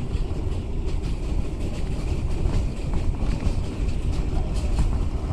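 Ride noise inside a moving New York City Subway 6 train car: a steady low rumble of wheels on the rails, with faint clicks and rattles over the top.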